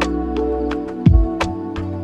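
Gentle background music: held chords over a steady light beat of ticks, with a low thud about a second in.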